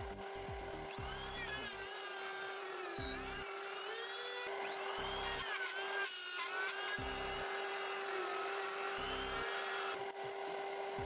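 High-speed rotary tool running as it bores through a workpiece, with a steady motor whine and higher tones that waver up and down as the load changes.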